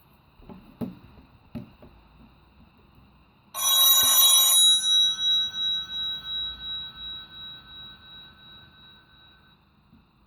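Sony Ericsson K810i phone speaker playing a bell-style ringtone. About three and a half seconds in, a loud burst of ringing starts, and its tones then fade with a pulsing beat over several seconds. A few faint clicks come before it.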